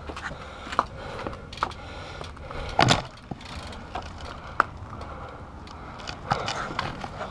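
GoPro camera housing clicking and clacking in its mount in irregular, sharp rattles, the loudest cluster nearly three seconds in, over a steady low rumble.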